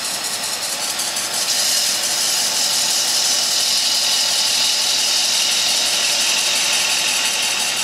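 A 1/2-inch spindle gouge cutting into wood spinning on a lathe: a steady hiss of shavings peeling off, a little stronger from about a second and a half in.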